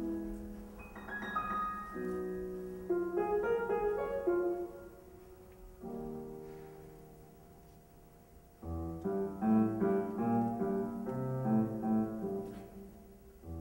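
Solo piano music with spaced single notes and chords that ring and fade. It thins out and quietens in the middle, then a louder, busier passage with low bass notes comes in about two-thirds of the way through.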